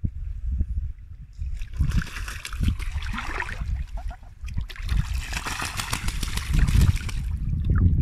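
Choppy water splashing and sloshing close to the microphone in two bursts, the first about a second and a half in and the second near the middle, over a low rumble of wind buffeting.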